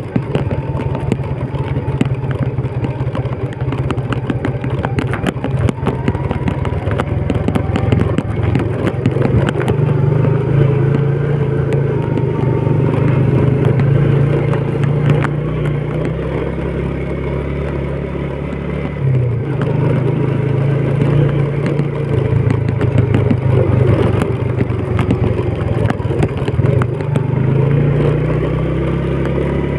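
Old Yamaha Vega underbone motorcycle's small single-cylinder four-stroke engine running steadily as it is ridden over a rough dirt track, with rattling from the bike over the bumps. The engine note drops briefly and picks up again about two-thirds of the way through.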